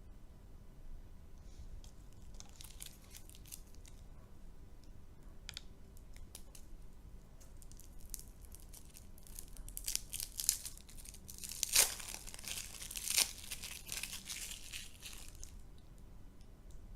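Plastic candy wrapper crinkling and tearing: sparse crackles at first, then a dense stretch of crackling with a few sharp snaps about ten seconds in, which stops near the end.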